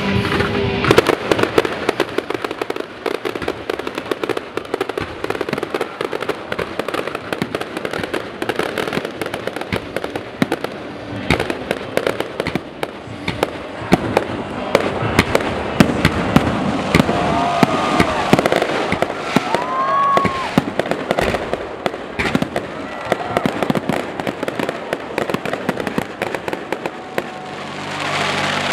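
Aerial fireworks display: a dense, unbroken run of shell bursts and crackling bangs, with a few short whistles in the second half.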